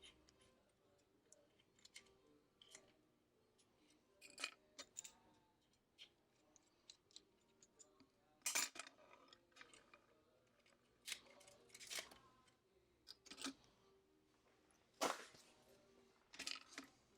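Scattered small sharp clicks and taps as tools and iPhone parts are handled during a screen repair, about half a dozen spread through the stretch. The loudest come about halfway and near the end, over a faint steady hum.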